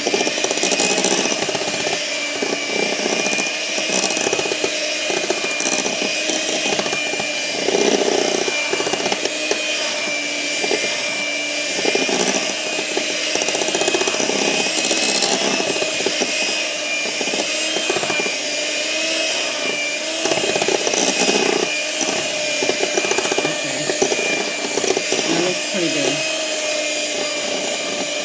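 Proctor Silex electric hand mixer running steadily with a constant motor whine, its beaters churning cake batter in a glass mixing bowl.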